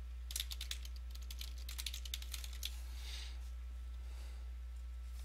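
Computer keyboard being typed on, a quick run of key clicks lasting about two and a half seconds and then stopping, over a steady low hum.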